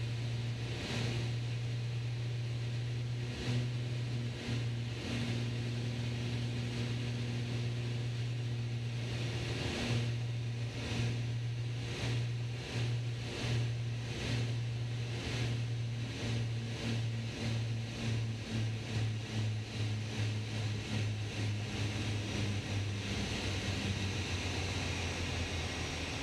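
Twin piston engines and propellers of a Beechcraft Baron B55 droning steadily in the cockpit on final approach. From about twelve seconds in, the drone wavers in a pulsing beat that quickens as power comes back. Near the end the deep drone thins out as the throttles come back for the flare.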